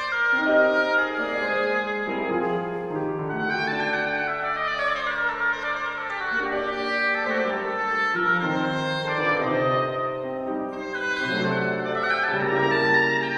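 Oboe playing a slow classical melody of held notes and falling runs, accompanied by chords on a grand piano.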